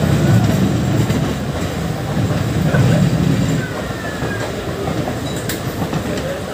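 Two passenger trains passing each other on adjacent tracks, heard from an open doorway of one of them: a heavy rumble and rattle of coach wheels on rail with some clickety-clack. It is loudest for the first three and a half seconds, then eases.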